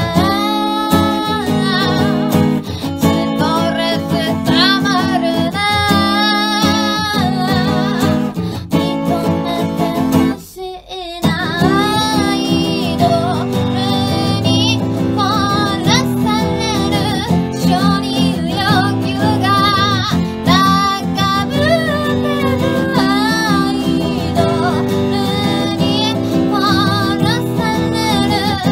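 A woman singing while strumming an acoustic guitar, with a short break in both voice and guitar about ten seconds in.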